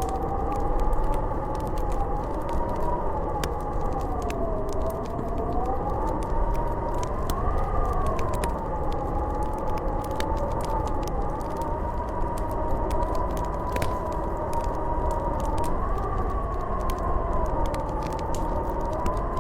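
Snowstorm wind howling: a whistling tone that slowly rises and falls in pitch over a steady rushing roar, with faint crackles from a wood fire scattered through.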